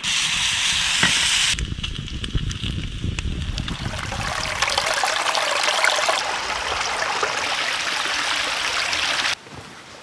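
A campfire burning with food sizzling in a pan over it, then a shallow mountain stream running over rocks for several seconds, cutting off suddenly near the end.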